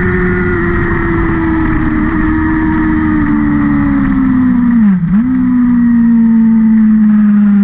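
Engine of a vehicle lapping a race circuit, running at speed with its pitch slowly sinking. About five seconds in the revs dip sharply and briefly, then the engine pulls on steadily and a little louder.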